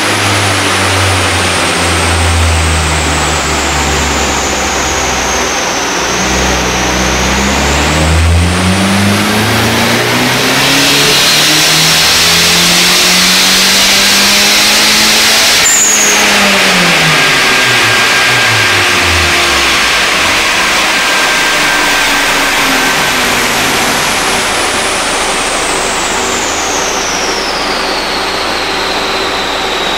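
Car engine making a pull on a chassis dynamometer: the revs climb steadily for about eight seconds, the throttle closes about halfway through, and the revs fall away quickly. A high whine then slowly drops in pitch as the car winds down on the dyno.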